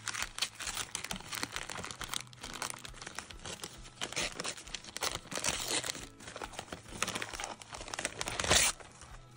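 Christmas wrapping paper being torn and crinkled by hand as a present is unwrapped, in irregular rustling rips, with the loudest tear about eight and a half seconds in.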